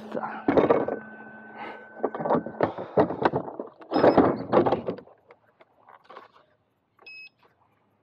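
Sneaker being pulled off by hand: rustling and knocking in several loud bursts over the first five seconds, then a few faint clicks. A short, high electronic beep sounds about seven seconds in.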